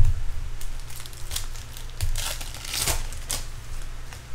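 Foil wrapper of a baseball card pack being torn open and crinkled by hand, in a run of crackly rustles that are loudest about two to three seconds in. A dull bump comes right at the start.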